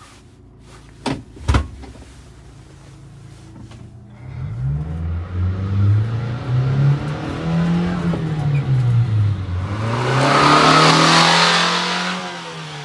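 Two sharp knocks near the start, then a 1993 Subaru Sambar mini truck's small four-cylinder engine pulling away. Its pitch rises as it accelerates, drops at a gear change, and rises again as it goes by loudest. It fades as the truck moves off.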